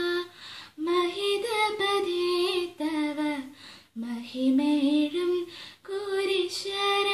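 A young woman singing a semi-classical Christian devotional song solo and unaccompanied, with long held notes and ornamented turns, pausing for breath about a second in and again near four seconds.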